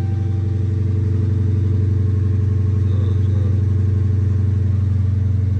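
2011 Dodge Charger engine running at a steady idle.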